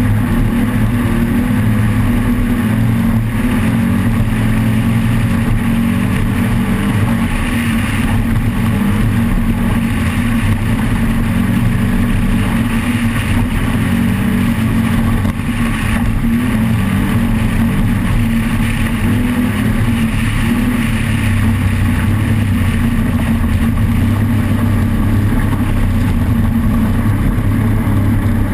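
Off-road race vehicle's engine running loud and steady at speed, its pitch holding nearly level throughout.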